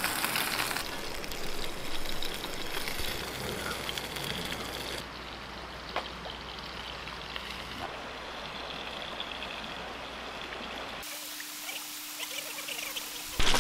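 Steady rushing hiss of a flowing stream, changing abruptly in level and brightness about 1, 5 and 11 seconds in.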